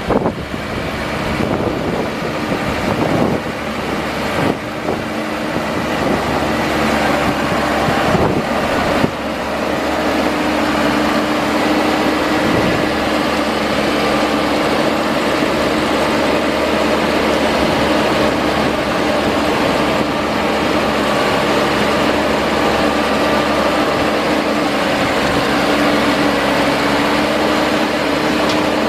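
Diesel engine of a 2010 New Holland TV6070 tractor running steadily as the tractor drives slowly along, with a steady hum settling in from about ten seconds in.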